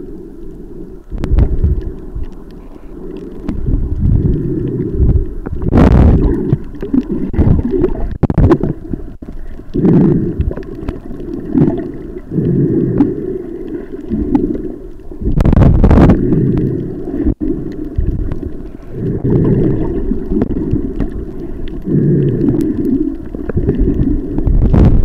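Muffled underwater rumble and gurgling of water moving around a submerged camera, swelling in surges every two to three seconds, with a few sharp crackles.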